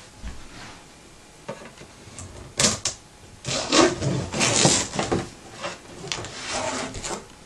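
A cardboard shipping box being cut open: a blade scraping and slicing through tape and cardboard in short irregular strokes, with a few sharp clicks and knocks of handling. The strokes get louder and closer together about halfway through.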